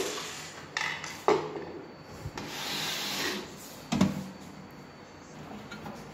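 Sheet-steel side panel of an inverter cabinet being fitted by hand: several sharp knocks of the panel against the metal cabinet, with a scraping rub of metal on metal about two and a half seconds in.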